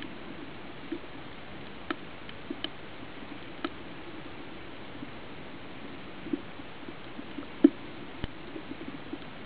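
Underwater ambience picked up by a camera's microphone on a coral reef: a steady faint hiss with scattered, irregular clicks and pops, the loudest about three quarters of the way through.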